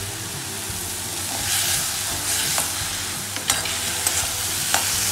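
Onions, green peas and ginger frying in oil in an aluminium kadhai, sizzling steadily. A slotted steel spoon stirring them gives a few sharp clicks against the pan, the first about halfway through.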